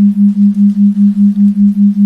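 A steady low theta-wave tone that pulses in loudness about six times a second, an even throb used for brainwave entrainment.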